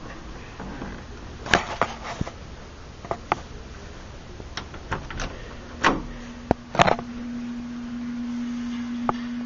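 A scattering of short clicks and knocks, about a dozen, uneven in spacing, with a steady low hum that comes in a little past halfway.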